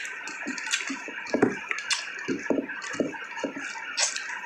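Chewing and crunching on pork curry bones close to the microphone: a string of irregular short cracks and crunches.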